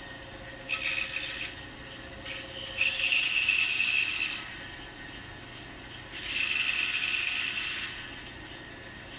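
Pegas scroll saw cutting through a small wooden block in three spells, a short one about a second in and two longer ones of about two seconds each. The saw is quieter in the pauses between cuts.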